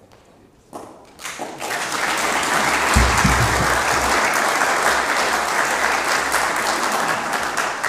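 Audience applauding, starting with a few claps about a second in, swelling quickly into full applause and dying down near the end, with a low thump about three seconds in.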